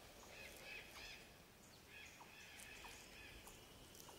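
Faint forest ambience of short chirping animal calls, repeated irregularly over a soft hiss.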